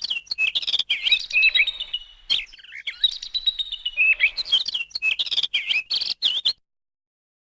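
Small birds chirping and twittering in quick rising and falling notes, then cutting off suddenly about six and a half seconds in.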